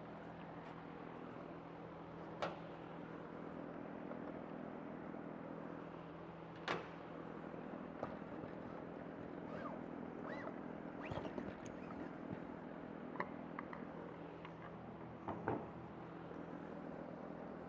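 Scattered clicks and knocks of a HydroTAC water conditioner's filters being taken out and replaced, over a steady low hum.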